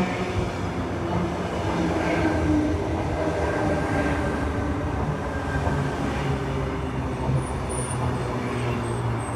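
Electric suburban passenger train running close by, a steady rumble of wheels and motors, with a faint high-pitched wheel squeal near the end.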